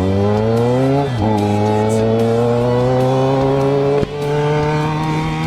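Yamaha XJ6 inline-four through a 4-into-1 aftermarket exhaust, accelerating hard. The revs climb, drop with a gear change about a second in, climb again more slowly, and fall briefly at a second shift about four seconds in.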